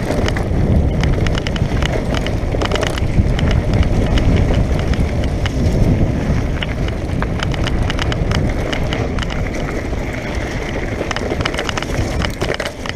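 Mountain bike descending a loose dirt and stone trail: wind rumbling on the microphone and tyres crunching over gravel, with frequent sharp rattles as the bike jolts over bumps.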